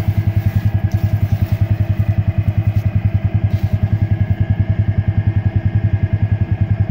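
The Ranger's engine idling steadily, an even throb of about a dozen pulses a second.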